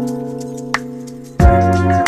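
Background music: held keyboard chords with light ticks, then a fuller beat with bass and drums comes in about one and a half seconds in.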